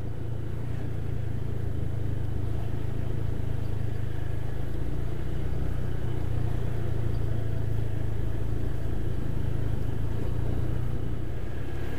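Honda motor scooter's engine running steadily at low speed while the scooter is ridden slowly, a constant low drone that grows slightly louder in the first couple of seconds.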